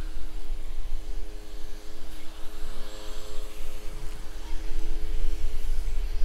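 Distant Boeing 787-9 airliner on final approach, its jet engines a steady drone with a few even humming tones over a low rumble.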